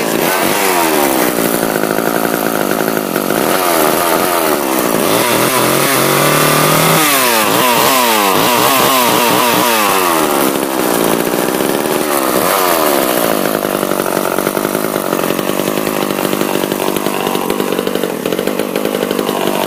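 Poulan Super chainsaw's two-stroke engine running just after a cold start, revved up and down over and over, with a quick run of throttle blips about seven to ten seconds in, then holding a steadier speed. The blipping keeps it alive; the saw has idle problems.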